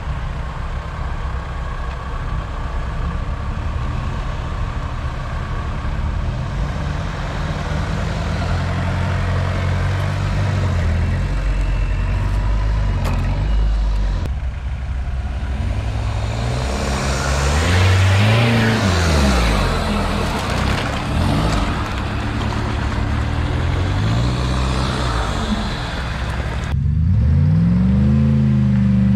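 Off-road 4x4's engine running under load in snow, revved up and down several times in the second half with a rushing noise alongside the revs, then cutting abruptly and revving up again near the end.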